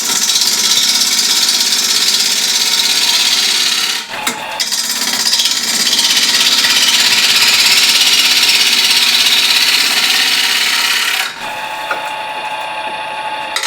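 Unsharpened gouge roughing the corners off a spinning beech blank on a Harvey Turbo T-40 wood lathe at about 1000 RPM: a loud, hissing cut. It breaks off briefly about four seconds in and stops about eleven seconds in, leaving the lathe running with a steady hum.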